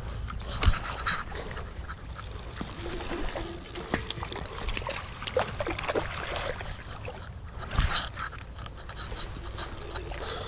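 Creek water sloshing and splashing, with scattered knocks and clicks; a sharp knock comes just under a second in and another loud burst near eight seconds.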